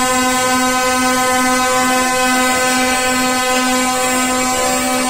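Lorry's telolet horn, a set of multi-trumpet air horns, holding one loud, steady chord of several notes.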